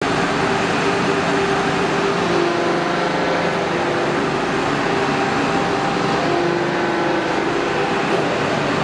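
Explosion-proof air conditioner running on its factory test: a steady, loud rush of air with a faint hum that drifts slightly in pitch.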